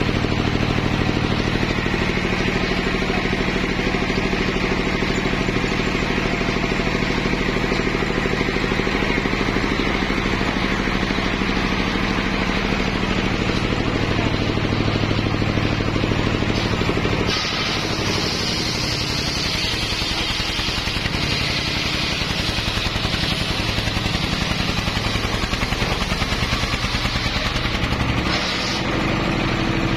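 Homemade bench circular saw, belt-driven by a stationary engine: the engine runs steadily with the blade spinning free. About seventeen seconds in, the blade starts ripping a log lengthwise, adding a high cutting hiss as the engine's note changes under the load. The cut breaks off briefly near the end and then resumes.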